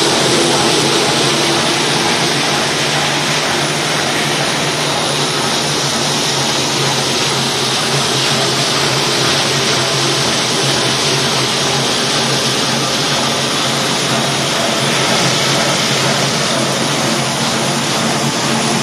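Needle-hole perforating rewinder for plastic film running: a loud, steady mechanical hum and whir from its motors and rollers.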